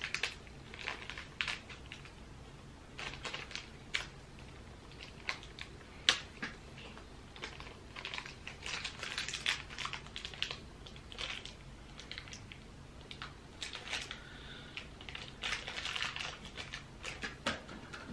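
Small plastic mystery pin package crinkling and clicking in the fingers as it is picked and pulled at, in irregular bursts. The package is sealed tight and is hard to open.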